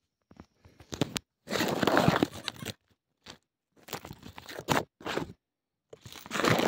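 Close, irregular crunching and scraping from hands brushing against rock, grit and dry roots right at the microphone, in bursts of about a second with short silent gaps between them.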